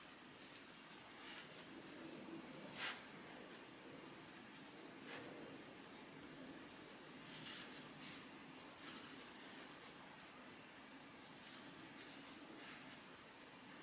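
Faint rubbing and soft taps of hands shaping raisin stollen dough on a floured wooden board, with one sharper tap about three seconds in.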